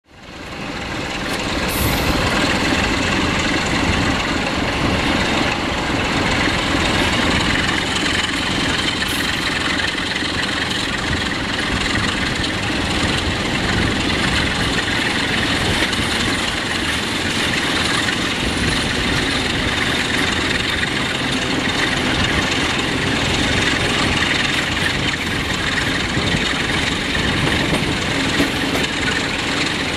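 Passenger train hauled by a 060-DA diesel-electric locomotive, heard from an open coach window while running along the track: a steady rush of wheel and running noise that fades in over the first two seconds.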